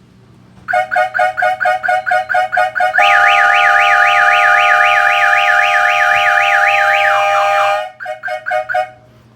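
Viper car alarm set off by a door opened while it is armed: the siren sounds loud rapid chirps, about four a second, then a fast up-and-down warble over steady horn tones, then chirps again before it stops. Air horns are wired into the alarm.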